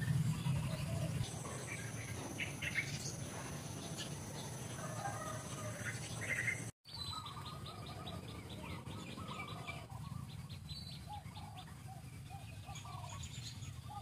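Wild birds chirping and calling, many short scattered notes over a steady low hum, with a fast run of ticking calls just after a momentary break in the sound near the middle.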